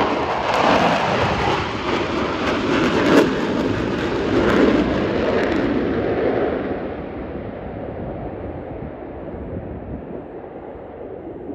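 Four-ship diamond formation of F/A-18 Super Hornet jets with loud jet engine noise. About six seconds in, the noise grows duller and fades as the jets climb away.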